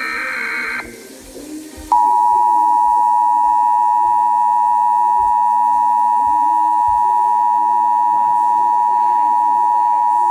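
Emergency Alert System tornado warning: a short warbling digital data burst (the SAME header) ends just under a second in. About two seconds in, the EAS attention signal starts abruptly, a loud steady two-tone alert tone held for about eight seconds before it cuts off.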